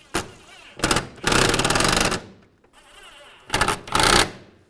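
Cordless impact driver running screws in and tightening them in short bursts: two brief bursts, then a steady rattling run of nearly a second, then two more quick bursts near the end.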